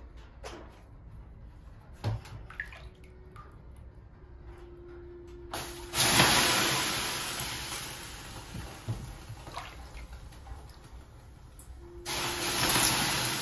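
Ladlefuls of water thrown onto the hot stones of a Finnish sauna heater, hissing and steaming twice, about six seconds apart. Each hiss starts suddenly and dies away slowly. A few light knocks come before the first one.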